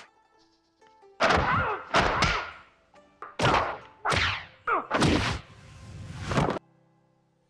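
Kung fu film fight sound effects: a quick run of punch and kick impacts mixed with loud shouted cries that fall in pitch. Near the end a swelling whoosh cuts off suddenly.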